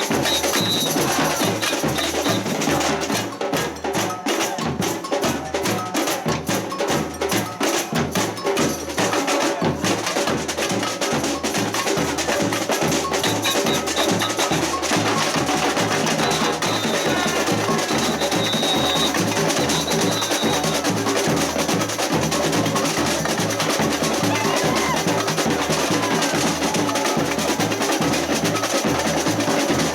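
Live samba-style percussion band: deep bass drums keep a steady beat under drums and clacking, wood-block-like hand percussion. A few short, high held tones sound in the second half.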